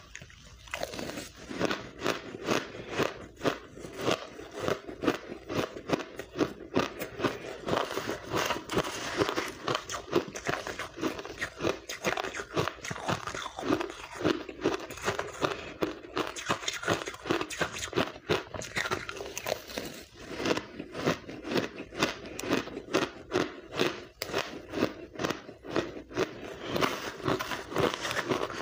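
Pink blender-crushed ice being bitten and chewed, a dense, continuous run of crisp crunches.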